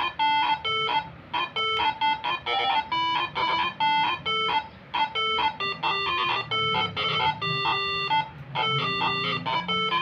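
Moreno MS7 air horn (telolet) melody module playing a tune as a rapid run of short pitched notes, several a second, with brief breaks about a second in and near the middle.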